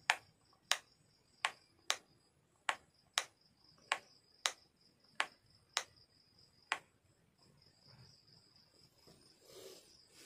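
A switchboard rocker switch clicked on and off about eleven times in seven seconds, switching a repaired LED bulb on and off to test it. A faint steady high insect trill runs underneath.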